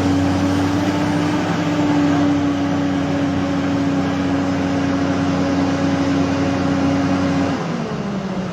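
An engine running at a steady speed with an even hum, its pitch dropping about seven and a half seconds in.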